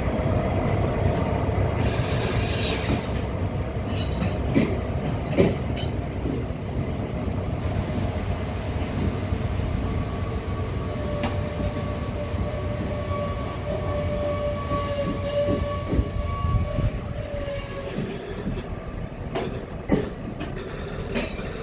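A train running through, with a steady low rumble and sharp clicks here and there from the wheels on the track. About halfway through, a thin high tone is held for several seconds.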